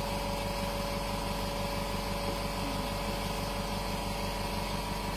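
Steady machine hum with an even low pulsing beat and a couple of steady tones, unchanging throughout.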